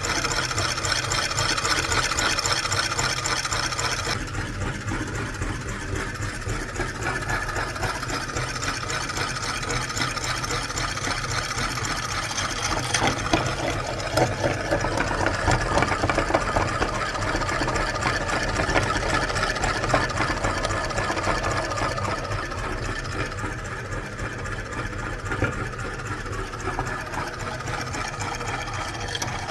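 Electric meat grinder running steadily while grinding an ice cream cone, its motor hum broken by irregular crunching clicks.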